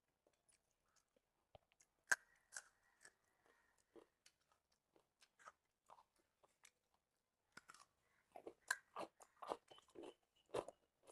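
Faint close-up eating sounds: scattered crunches and wet chewing clicks, with a sharper crunch about two seconds in and a quicker run of chewing in the last few seconds.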